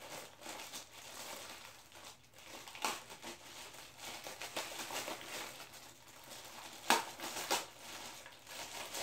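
Clear plastic wrapping crinkling and crackling as it is handled and pulled off a portable cassette recorder, with two sharper crackles about 3 and 7 seconds in.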